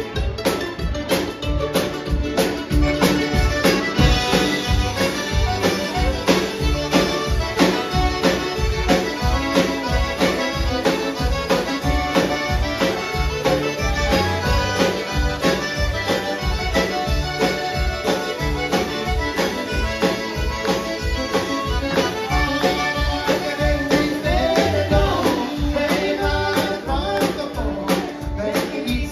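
Live country band music led by a squeezebox accordion, with fiddles, mandolin, acoustic guitar and upright bass over drums keeping a steady two-beat rhythm.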